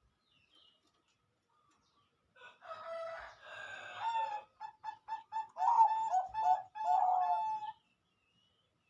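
Zebra dove (perkutut) cooing its song: one phrase beginning about two seconds in, made of an opening coo, a quick run of short stuttering notes, and a longer closing note.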